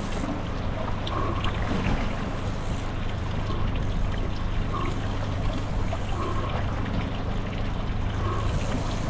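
A boat's motor running steadily with a low hum, under water and wind noise.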